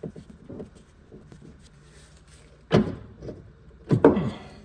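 Metal clunks and knocks from a Lotus Elise S1's rear suspension being lowered, the upright dropping away from the upper wishbone's ball joint. Two louder clunks come a little past the middle and near the end, the second ringing briefly.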